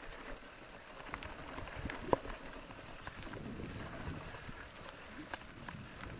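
Mountain bike riding down a rough grassy trail: tyres rolling over uneven ground, with irregular knocks and rattles as the bike hits bumps and stones.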